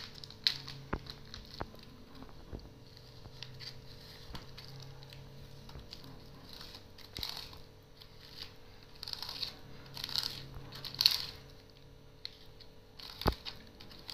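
Cheese being grated on a flat metal hand grater: irregular rasping strokes, most of them in the second half, with a few sharp knocks of the grater, the loudest near the end.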